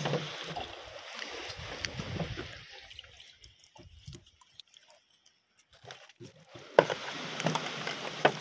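Water sloshing and lapping with a few light clicks; it drops almost to silence for about three seconds in the middle, then comes back with a sharp click.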